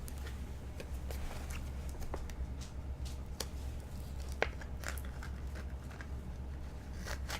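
1985 Topps football cards being handled and flipped through by hand: scattered light clicks and soft rustles of card stock, one sharper click about halfway, over a steady low hum.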